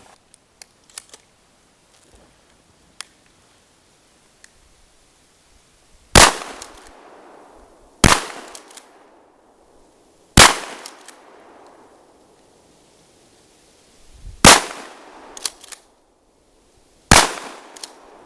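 Five shots from a Remington 870 12-gauge pump shotgun firing 2¾-inch 00 buckshot through a 20-inch smoothbore barrel, spaced two to four seconds apart, each trailing off in a short echo.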